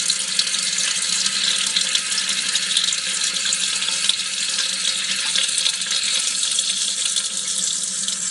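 Peeing sound effect: a steady stream of liquid splashing into water, an even hiss that holds at one level throughout.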